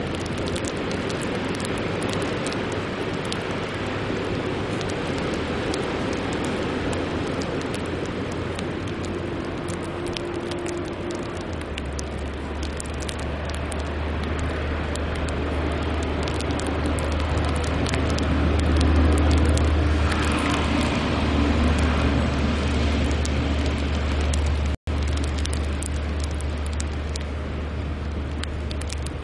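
Ice storm outdoors: a steady rush of wind with many small ticks of sleet, and a low rumble that swells about twelve seconds in and is loudest around twenty seconds. The sound cuts out for an instant near the end.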